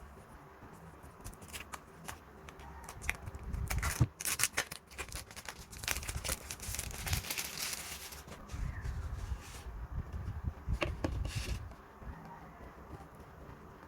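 Plastic shrink wrap being torn and peeled off small cosmetics boxes, crinkling, with light clicks and taps as the boxes are handled. The loudest tearing comes in the middle.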